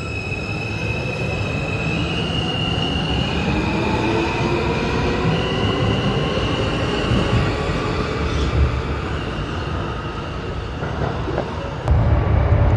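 Subway train pulling out of the station: its motor whine holds high tones that jump between two pitches, while lower tones glide steadily upward as it speeds up, over a continuous rumble of wheels on rail. Near the end a louder low rumble comes in.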